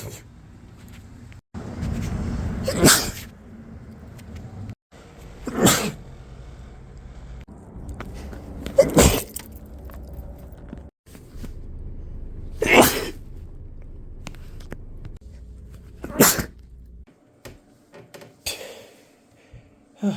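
A person sneezing, about six separate sneezes a few seconds apart, each a short sharp burst; the last is fainter. A steady background hum changes with each cut between clips.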